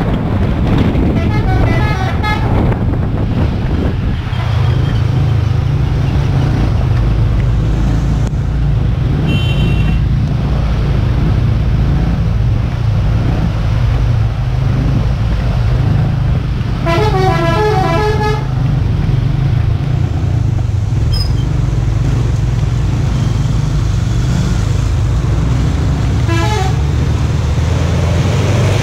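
A bus engine drones steadily under road and wind noise, while a multi-note musical bus horn sounds short runs of notes about a second in, around seventeen seconds in, and again near the end.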